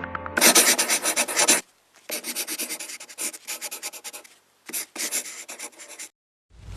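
Quick rubbing or scratching strokes, several a second, in three short bursts that start and stop abruptly, followed near the end by a swelling rush of noise with a deep low end.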